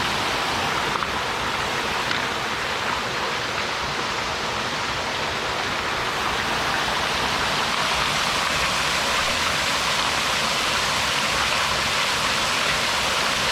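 Small waterfall running: a steady, even rush of falling water.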